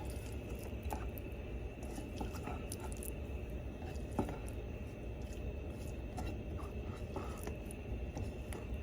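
A few light clicks and soft taps of a utensil against a plate, the clearest about four seconds in, over a steady low kitchen hum with a faint high whine.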